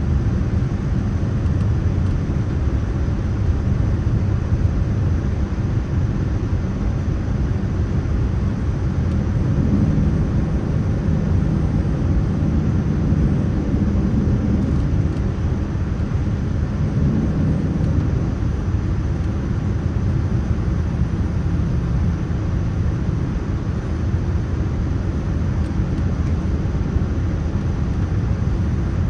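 Steady low rumble of a Boeing 787-9 airliner's jet engines and airflow, with a faint hum that comes in around a third of the way through and fades out past the middle.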